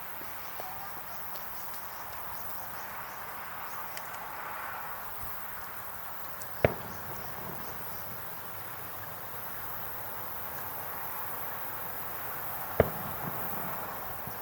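Insects chirping in a steady outdoor night ambience. Two sharp bangs come about six seconds apart, the first about a third of the way in and the second near the end.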